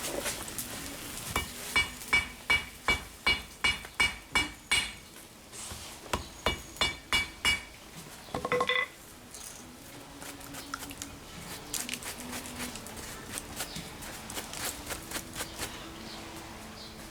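Hammer blows on steel at an anvil, each strike ringing, in a run of about ten blows at roughly three a second. After a short pause comes a second run of about five. A brief ringing note follows, then lighter, scattered taps.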